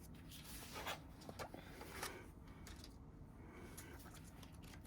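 Faint rustling and light handling of the album's paper and card inclusions, a few soft scrapes about a second and two seconds in, over quiet room tone.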